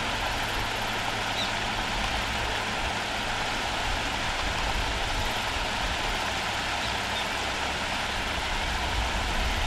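Steady rushing of water pouring over rock shelves in a river rapid, a continuous even noise.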